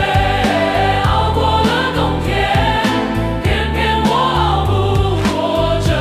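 Music: a choir arrangement of a Chinese pop ballad, with choir voices singing no clear words over bass and a steady beat.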